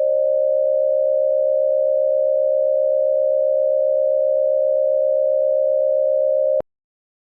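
Emergency broadcast attention tone: a steady electronic tone at one mid pitch, held level, that cuts off abruptly with a click about six and a half seconds in.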